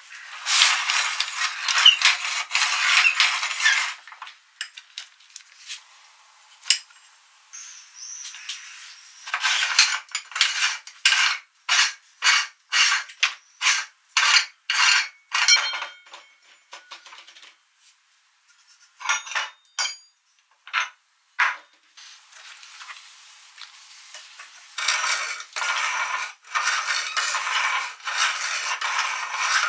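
Hand-cranked metal meat grinder grinding silicone pop-it toy and being handled, with metal clinks and scrapes from its parts. There is a run of sharp strokes about two a second in the middle, and denser scraping grinding noise at the start and again near the end.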